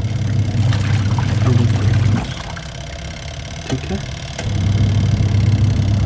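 Semi-automatic washing machine's wash motor running with a steady low hum as its tub churns blankets in soapy water. The hum stops for about two seconds midway and then starts again, as the wash action pauses and reverses direction in strong mode.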